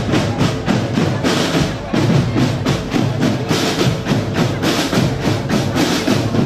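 Marching drum corps percussion playing a fast, steady rhythm of drum strikes.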